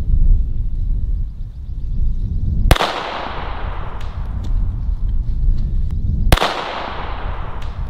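Two single shots from a VZ-61 Scorpion short-barreled rifle in .380 ACP, about three and a half seconds apart. Each sharp crack is followed by an echo that fades over about a second.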